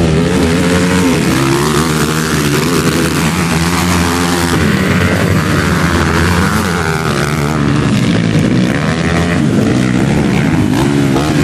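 Motocross dirt-bike engines revving hard as the bikes race round a dirt track, the pitch rising and falling again and again as they accelerate and ease off.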